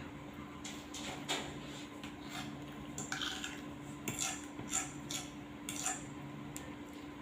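Fork or spoon clinking and scraping against a plate several times, spaced irregularly about every half second to a second.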